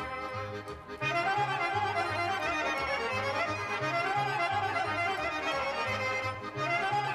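Instrumental folk music with a melody that rises and falls over a steady pulsing bass beat; the sound dips briefly about a second in and again near the end.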